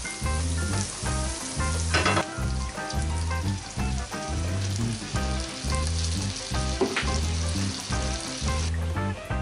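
Butter and chopped garlic sizzling in a frying pan as they are stirred with a wooden spoon. There is a louder burst about two seconds in as cream and milk are poured in, and the sizzle stops shortly before the end. Background music with a steady bass beat plays throughout.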